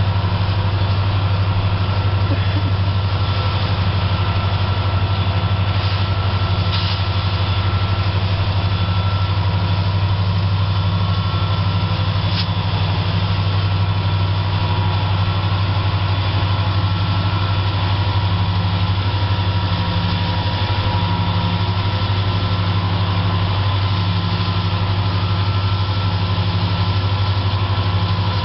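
Diesel locomotive engines idling: a steady low drone that holds an even level, with no revving or passing swell.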